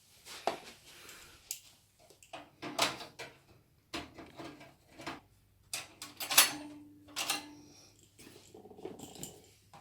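Irregular clicks, knocks and rustling of computer parts and packaging being handled during a PC build, with a short low hum about two-thirds of the way through.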